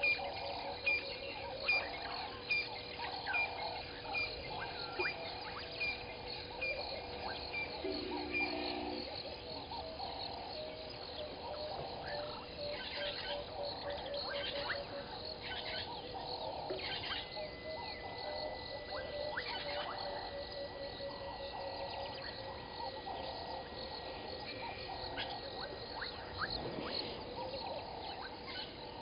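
Chorus of frogs calling over and over, with a steady trilling of insects underneath and a regular ticking call for the first few seconds.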